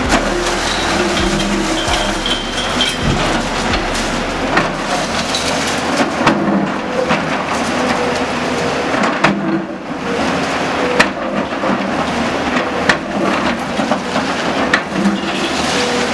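Hitachi hydraulic excavator demolishing a masonry building: a continuous crashing and crumbling of falling rubble with frequent sharp knocks, over the excavator's diesel engine running.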